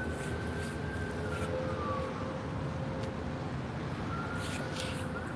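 Emergency-vehicle siren wailing, its pitch sliding down about two seconds in and rising again near the end, over a steady low rumble of city traffic.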